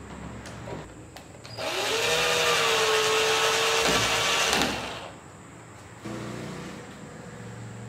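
Cordless drill driving a screw into a pine board: the motor whines up to speed, runs steadily for about three seconds and winds down as the screw seats.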